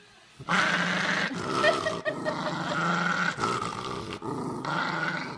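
West Highland White Terrier growling in long stretches with brief breaks, starting about half a second in, grumbling at being held and petted.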